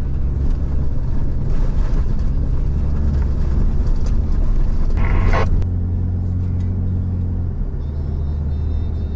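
Truck engine running with a steady low drone. A brief higher-pitched sound cuts in about five seconds in.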